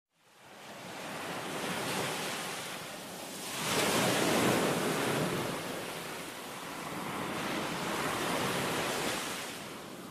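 Sea waves washing, a steady rush of surf that swells about four seconds in and again near the end.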